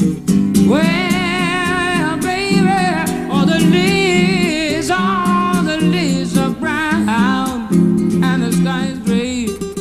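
A man singing a wordless melody with vibrato and sliding notes over a strummed acoustic guitar, as an instrumental-style vocal solo with no lyrics.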